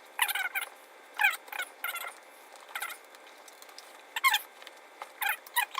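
Screws squeaking as they are turned by hand with an Allen key into a motorcycle tank-bag mounting ring: short, high, wavering squeaks in irregular groups, one group for each turn of the key.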